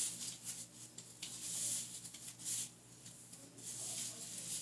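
A comb drawn through hair in a few scratchy strokes, with light ticks in between.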